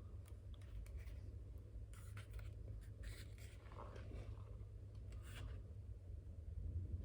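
Faint, scattered rustling and scraping of something being handled, over a steady low hum.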